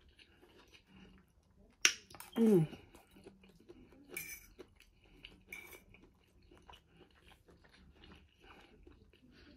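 Close-miked chewing of a mouthful of fried rice with the mouth closed, with a short falling "mm" hum of enjoyment about two seconds in. A sharp click just before the hum and a few lighter clicks later come from the metal fork against the plate.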